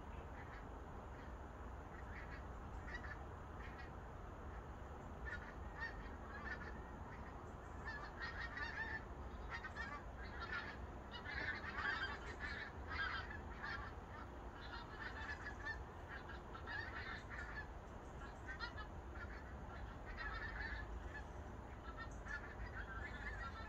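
A large flock of migrating geese flying over in a skein, many birds honking at once in a continuous overlapping chorus that is thickest and loudest around the middle. A steady low rumble runs underneath.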